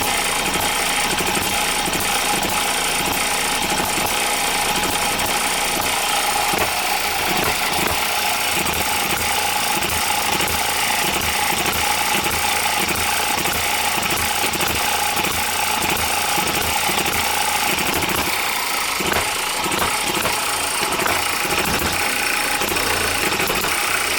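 OKMO Microcosm M92 miniature hit-and-miss gas engine running steadily with a fast, even mechanical beat.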